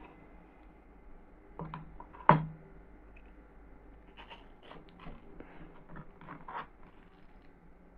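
Small clicks, taps and scrapes of a heart-shaped metal cutter being pressed into watermelon on a cutting board, with one sharp knock a little over two seconds in.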